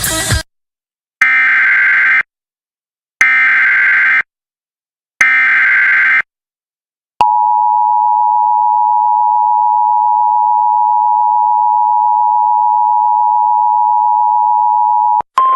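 Emergency Alert System header: three one-second bursts of buzzy SAME digital data tones, about two seconds apart, followed by the EAS two-tone attention signal held steady for about eight seconds. Near the end the two-tone signal cuts off and a single steady tone begins.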